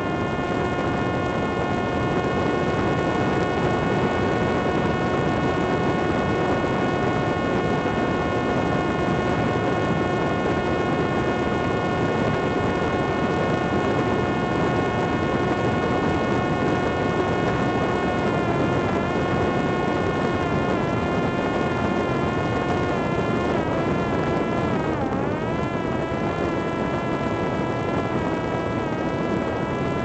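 Parrot Disco fixed-wing drone's electric motor and propeller whining steadily in flight, over a constant rush of wind across the airframe. From a little past the middle the whine's pitch starts to waver, and near the end it dips sharply once and comes back up.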